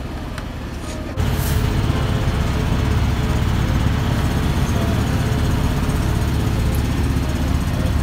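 A boat's engine running steadily, a low, even drone that suddenly gets louder about a second in and holds there.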